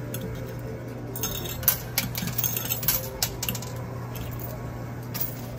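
Quarters dropping and clinking against one another on a coin pusher's playfield, with a quick flurry of clinks from about one to four seconds in and a few more near the end, over a steady low hum.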